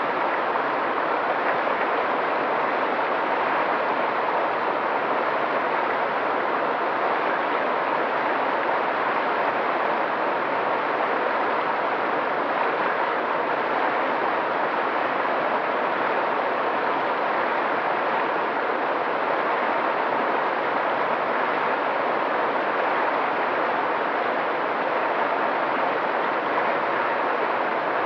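Mountain stream running over rocks: a steady, even rush of water.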